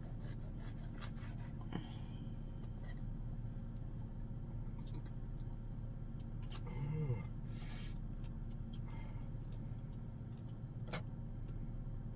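Scattered clicks, rustles and scrapes of things being handled and put away, over a steady low hum. A brief murmur and a short rustling scrape come about seven seconds in.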